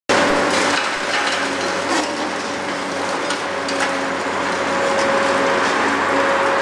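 Concrete breaking and rubble falling as a CAT 385B long-front demolition excavator tears down the upper floors of a concrete building: a steady crunching din with scattered sharp cracks, over a faint steady hum.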